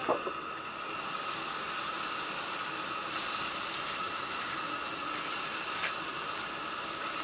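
Steady sizzling hiss from hot cast iron waffle-iron plates on a camp stove as pancake-style batter is poured onto one of them.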